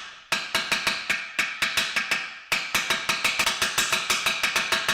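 Quick, even hammer taps, about five a second with a short break midway, knocking a new outer ball bearing into the rear of a ZF 6HP26 automatic transmission case, worked around its rim. Each blow rings with a metallic tone.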